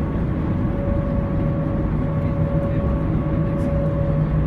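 Vancouver SeaBus passenger ferry's diesel engines running steadily under way as it pulls away from the dock: a constant drone with a few held humming tones over a low rumble, heard from inside the passenger cabin.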